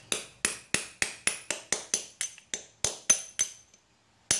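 Ball-peen hammer tapping on the steel bearing of an alternator overrunning clutch pulley to drive the bearing out: quick metallic taps, each with a short high ring, about three or four a second, then a brief pause before the taps start again near the end.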